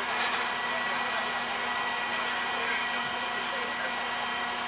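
Mobile crane's engine running steadily while it holds a suspended load: a continuous drone with a faint steady hum, and a few light clicks right at the start.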